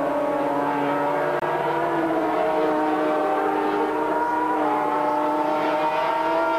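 Racing sidecar outfits' two-stroke engines running hard at high revs, several machines together making a steady high whine. The pitch rises near the end as they pull out of the corner.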